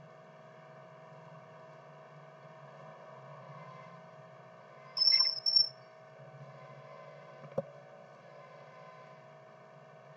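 Faint steady background hum of a quiet room. About five seconds in come two short high-pitched chirps in quick succession, and a couple of seconds later a single click.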